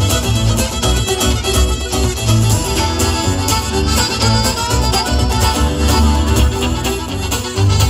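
Live traditional Irish band playing an instrumental tune on fiddle, accordion and acoustic guitar, amplified on stage, with a strong pulsing bass underneath.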